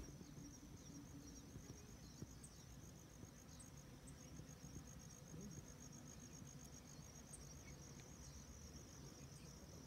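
Near silence with crickets trilling faintly and steadily, high-pitched and finely pulsed, with a few short high chirps over it.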